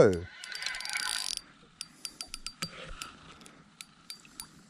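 A brief rustle, then a quick run of sharp, ratchet-like clicks at about six a second, followed by a few scattered clicks.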